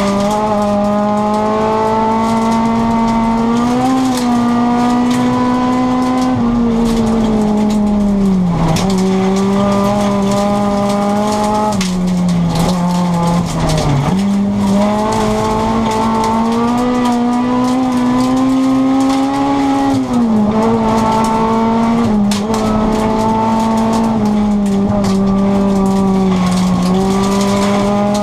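Rally car engine heard from inside the cabin, running at high revs over a steady hiss of tyres on gravel. Its pitch holds high, with brief dips about 8, 14 and 20 seconds in.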